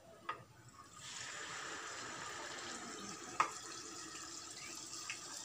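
Hot oil sizzling steadily as a batter-coated banana slice deep-fries for pazham pori (banana fritters), starting about a second in. A few sharp clicks sound over it, the loudest a little past three seconds.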